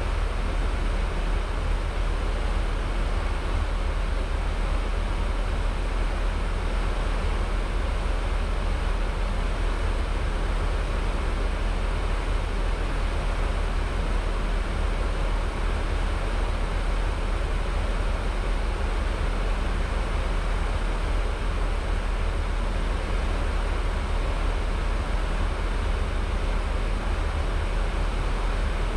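Steady in-flight noise inside an Airbus A320: a constant rush of air with a deep rumble underneath, unchanging throughout.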